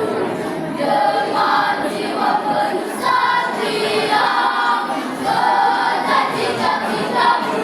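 Primary school children's choir singing together, held notes moving from one to the next.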